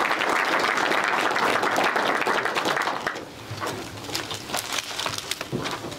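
Audience applauding, dying away about halfway through to a few scattered claps.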